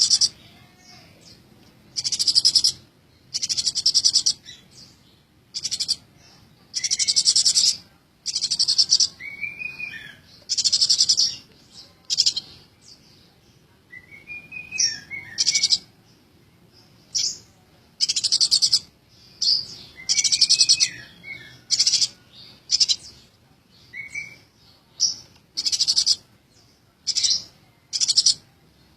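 Eurasian tree sparrow chirping busily in short, high, buzzy bursts about once a second, with a few lower, curving notes between them.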